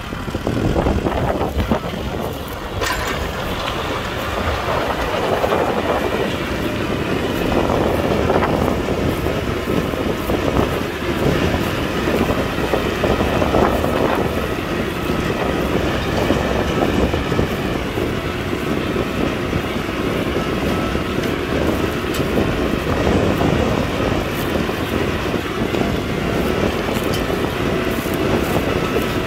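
Kubota tractor's diesel engine running under load while plowing, with a constant metallic clatter and rattle.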